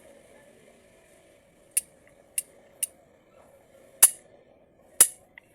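Sharp, irregular clicks of small metal transmission valve-body parts being handled and set down, five in all, the two near the end loudest, over a faint steady hum.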